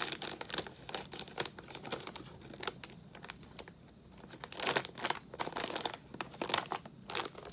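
Crinkly plastic snack bag being handled and pulled open: irregular crackling, in its loudest spurts about 4.5 to 7 seconds in.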